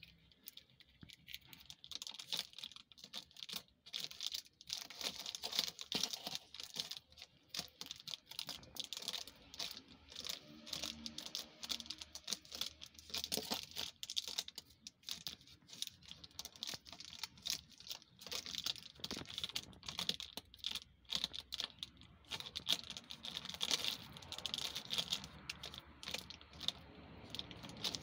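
Dense, irregular crackling and crinkling as a cat chews and paws at a strip of plastic packing tape on a cardboard box.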